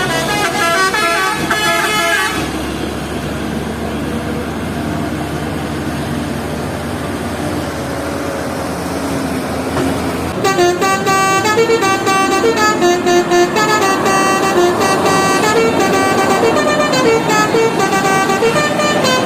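Indonesian bus 'telolet' musical horns playing a quick tune of stepping notes, then several seconds of a heavy vehicle's engine and road noise. From about ten seconds in, telolet horn tunes play again and keep on to the end.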